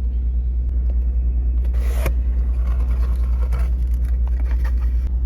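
Car engine running with a steady, evenly pulsing low rumble, and a short hissing noise about two seconds in.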